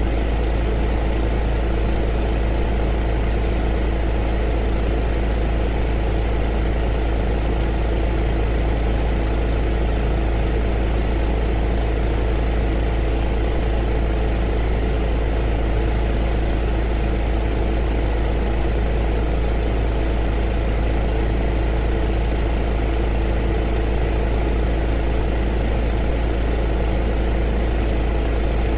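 A heater running steadily, giving an even rushing noise with a deep low rumble and a constant hum.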